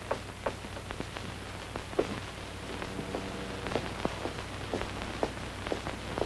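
Scattered irregular clicks and crackles, a few sharper ones among them, over a low steady hum: the surface noise of an old 1930s film soundtrack.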